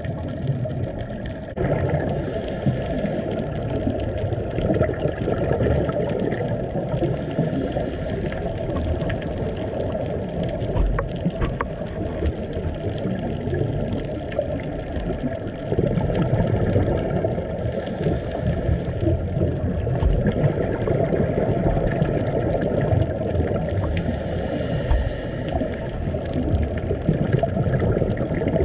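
Muffled underwater noise picked up by a diver's camera on a reef: a steady low rushing of water with a few faint clicks.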